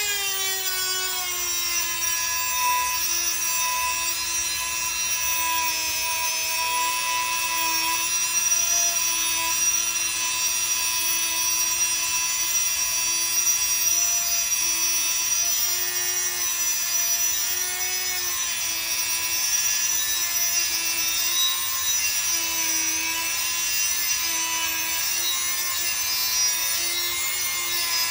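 Dremel rotary tool with a cut-off wheel grinding through a metal rod: a steady high motor whine that drops in pitch just as the wheel bites in, holds there under load, and rises again near the end as the load eases.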